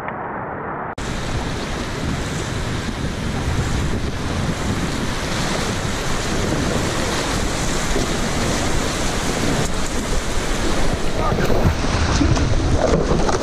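Rushing whitewater close up as a packraft runs a rapid, heard through an action camera's microphone with wind buffeting it. The noise comes in suddenly about a second in and grows a little louder, with stronger splashing near the end.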